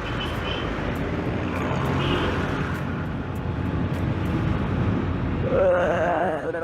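Motorcycle riding in traffic, heard from the rider's camera: a steady rumble of engine, road and wind noise. Near the end a short wavering pitched sound rises over it.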